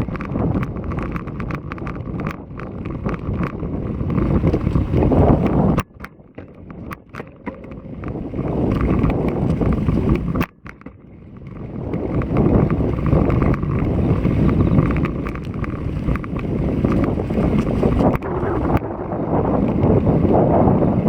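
Wind buffeting the action camera's microphone on a moving road bike, a loud rumbling gusty wind ahead of an approaching typhoon. The rumble drops away suddenly about six seconds in and again near the middle, then builds back up.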